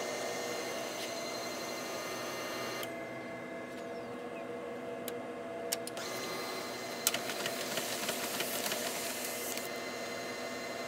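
Desktop laser printer running a print job after its Go button is pressed. It hums steadily, then gives a run of quick clicks and rattles from about seven seconds in as a sheet feeds through and is ejected, now without jamming after the cleaning.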